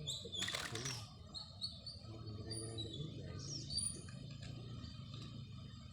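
Small birds chirping in short, high notes scattered throughout, over a steady low hum. A brief rustling noise comes about half a second in.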